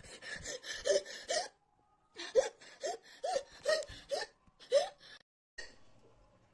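A woman hiccuping in quick runs of short, gasping vocal catches, about two a second: three at the start, then after a brief pause six more. These are hiccups in a woman whose mouth and throat are burning from an extremely hot chip.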